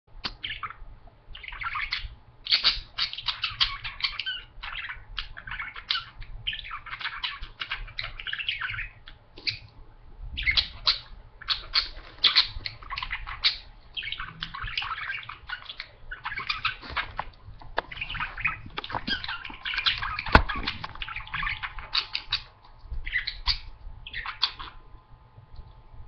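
Budgerigars chattering and warbling in long, busy runs of chirps and scratchy notes with short pauses between them. There is a single sharp click about twenty seconds in.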